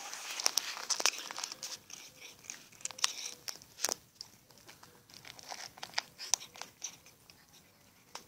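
A kitten crunching dry kibble from a bowl: irregular sharp crunches and clicks, close together for the first few seconds, then sparser.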